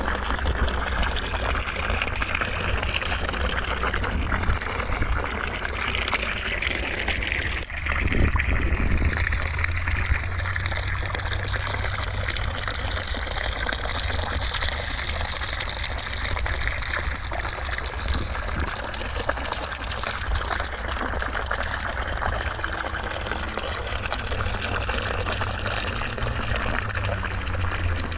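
Continuous white noise, a steady rushing hiss like gushing water, with slowly wavering bands and a brief dip about eight seconds in.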